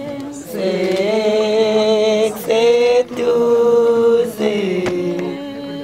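Voices chanting in long held notes with a wavering pitch, in three loud phrases with short breaks, then a softer phrase near the end.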